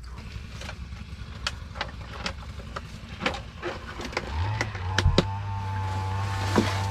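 A string of sharp clicks and knocks, then a motor starts about four and a half seconds in and runs on at a steady pitch.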